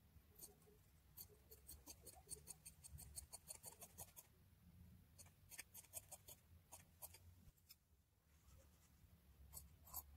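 Faint scissors snipping through fabric: a quick run of short snips about a second in, lasting a few seconds, then scattered snips in small groups.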